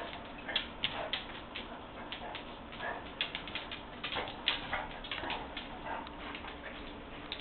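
Basset hound giving short whimpers every second or so, over frequent irregular clicks and taps.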